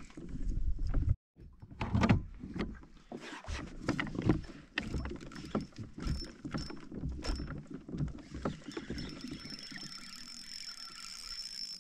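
Water slapping and splashing against a plastic sit-on-top kayak's hull as it moves, with irregular knocks and clatter from the boat and its gear.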